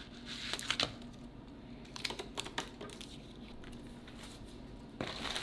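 Scattered light clicks and taps of hands handling a plastic headlight housing and a strip of butyl headlight resealing tape, with a denser cluster of handling noise near the end.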